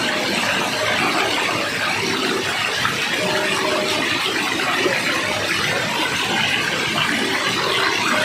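Waterfall: water rushing steadily.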